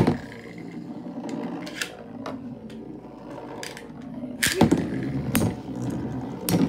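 Metal Fusion Beyblade spinning tops whirring steadily on a plastic lid after a sharp launch at the start; about four and a half seconds in a second top lands, and the metal tops clash with sharp clacks.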